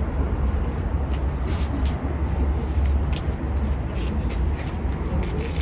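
Wind buffeting the microphone as a steady low rumble, with scattered light rustles and crackles on top.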